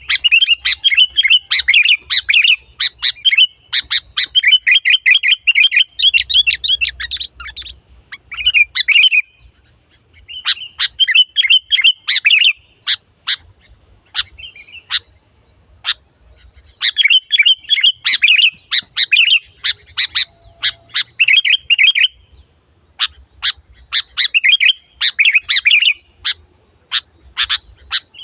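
Sooty-headed bulbul (kutilang) singing loudly: bursts of rapid chattering phrases broken by short pauses and runs of single sharp notes.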